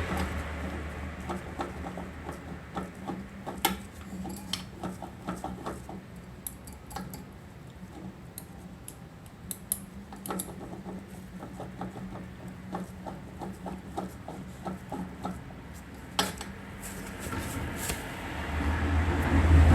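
A vehicle engine running with a low steady hum, over scattered, irregular sharp metallic clicks and clinks. The engine hum fades a few seconds in and grows loud again near the end.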